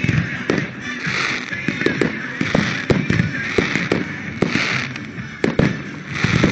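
Aerial firework shells bursting one after another, with sharp bangs coming every half second or so. Disco music from the show's soundtrack plays underneath.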